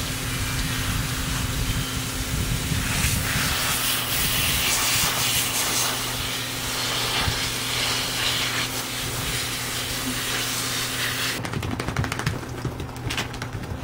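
Garden hose spray nozzle hissing steadily as water sprays out, cutting off suddenly about eleven seconds in, followed by a few light clicks.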